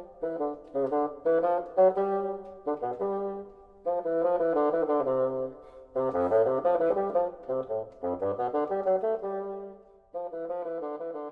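Instrumental jazz-style music: horn chords changing every half second or so over a bass line.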